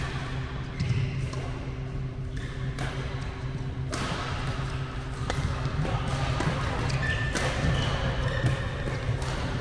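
Badminton rackets striking a shuttlecock in a rally: several sharp hits a few seconds apart, ringing in a large hall, over a steady low hum.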